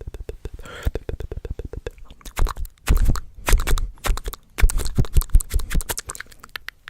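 Close-miked ASMR trigger sound: rapid tapping and scratching clicks, with heavier thumps and crunchy rustling through the middle.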